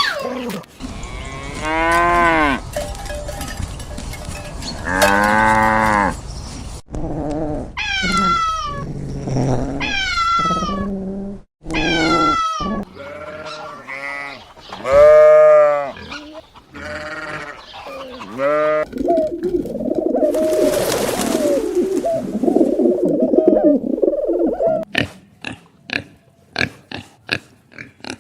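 A string of farm animal calls cut together one after another, with cattle mooing among them. There are many short pitched calls, some sliding down in pitch, and a rougher, noisier stretch about two-thirds of the way through.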